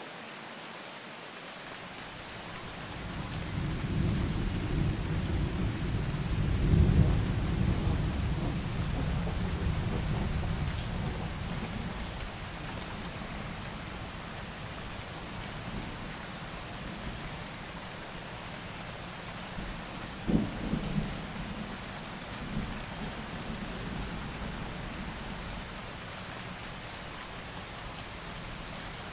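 Steady rain with rolling thunder: a deep rumble builds about three seconds in, peaks a few seconds later and fades away, and a shorter, sharper clap of thunder comes about twenty seconds in.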